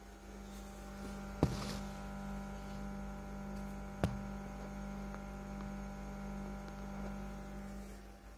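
Steady electrical mains hum with many overtones from a JBL woofer in a home-built subwoofer cabinet, swelling in at the start and fading near the end. Two sharp knocks come about one and a half and four seconds in.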